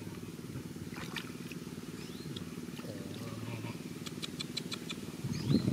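Steady low putter of a small motor running, with a few short high chirps of birds or insects. Louder rough water-splashing noise comes in near the end.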